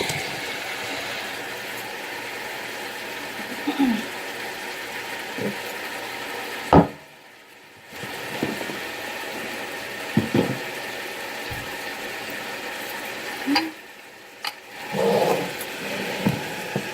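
Chicken pieces frying in a pan with masala, a steady sizzle with a few knocks of a spoon against the pan; the sizzle drops out briefly twice.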